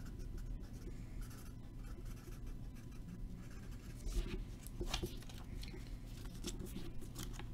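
Faint scratching of a pen writing on paper, with a few light clicks and taps.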